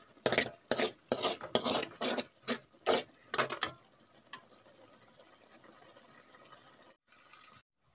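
A metal spatula scraping and stirring vermicelli upma in a metal kadai, about two or three strokes a second for the first four seconds, as the last of the water cooks off. After that there is only a faint steady hiss.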